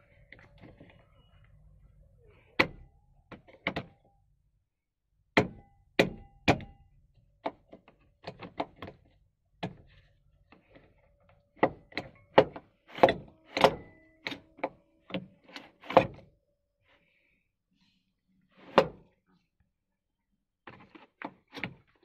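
Irregular clicks and knocks of hard plastic B-pillar trim and seat-belt anchor hardware being handled and fitted in a Maruti Suzuki Ertiga, some single and some in quick runs, thickest in the middle with a pause of a couple of seconds near the end.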